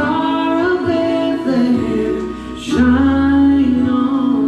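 A woman singing a song over instrumental accompaniment, holding long notes.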